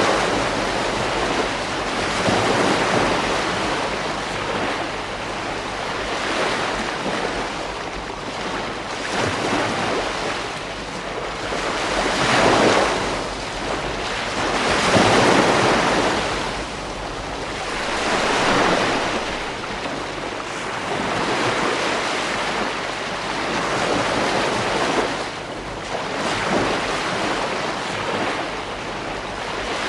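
Ocean waves breaking on a beach, the surf swelling and washing back in repeated surges every few seconds.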